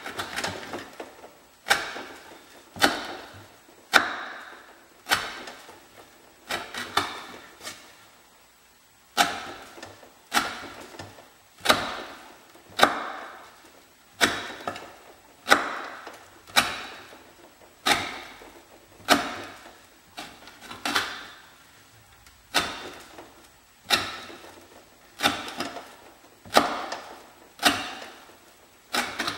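Swamp Rat Rodent Solution knife cutting quarter-inch sisal rope against a pine board: a sharp knock as the blade goes through the rope onto the wood, about once a second, each followed by a short fading rasp. There is one longer pause about eight seconds in.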